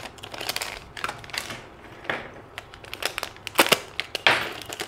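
Crinkling and rustling of a clear plastic bag being handled, in an irregular run of crackles with a few louder bursts toward the end.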